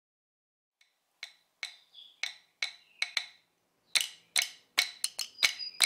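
Sharp percussive clicks opening a reggae song, about two a second at first, then louder and quicker from about four seconds in.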